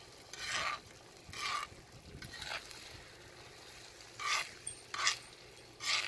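Metal spoon scraping and stirring eggs and sausage crumbles across a cast iron griddle, in about half a dozen short strokes, over a faint sizzle.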